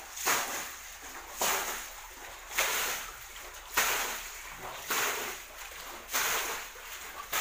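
Water being bailed out of a shallow pool with plastic bowls and flung out in splashes, a regular splash about once a second, to drain the pool for catching fish.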